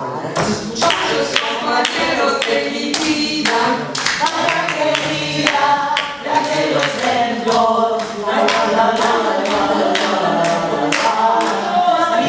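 A group of voices singing together, with hand-clapping on a steady beat.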